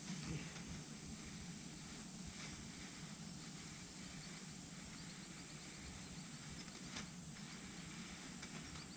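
Faint outdoor ambience with a steady high-pitched insect drone and a few soft knocks now and then.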